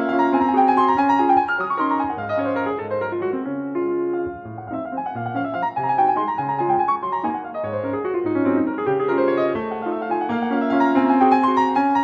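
Background piano music with quick runs of notes sweeping down the keyboard.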